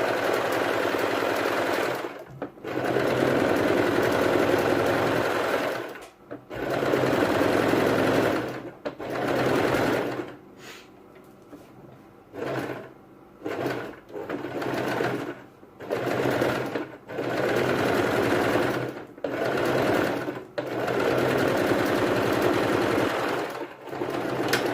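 Electric home sewing machine stitching through fleece fabric, running in stretches of one to three seconds and stopping and starting many times, with a quieter spell of about three seconds near the middle.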